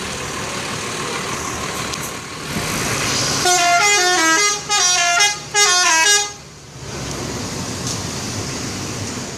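Indonesian bus 'telolet' horn, a multi-tone musical horn, playing three quick phrases of stepping notes over steady traffic noise. The horn starts about three and a half seconds in and stops a little after six seconds.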